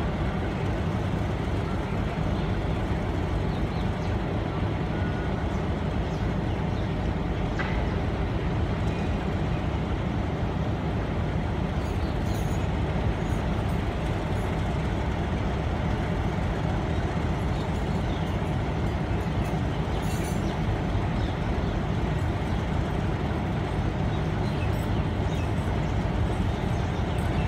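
Diesel locomotive engine idling with a steady low rumble.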